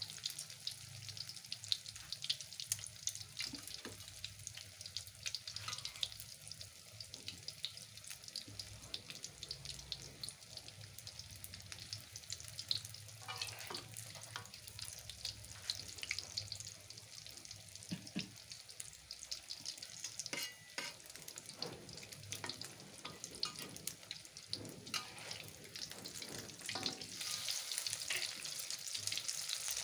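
Battered tofu-and-egg fritters sizzling in hot oil in a wok, with many small pops. A metal spatula knocks against the wok now and then as the fritters are turned and lifted.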